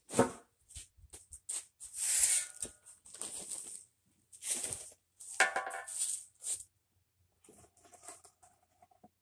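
Repeated short bursts of gritty scraping and rustling with sharp clicks between them, from sand and a wooden board being worked over concrete pavers close by.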